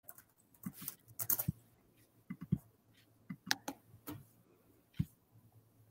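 Computer keyboard being typed on: short, irregular key clicks in small clusters, over a faint low hum.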